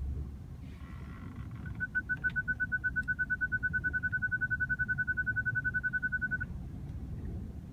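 BMW 528i park distance control beeping rapidly during automatic parking, about ten high beeps a second, starting about two seconds in and stopping suddenly near the end: the car is close to an obstacle as it manoeuvres. A low engine and cabin rumble runs underneath.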